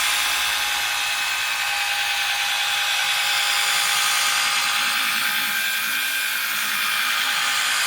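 Electric power tool running steadily with a motor whine over a rough rubbing hiss, polishing the old windscreen glass with a wet polishing compound.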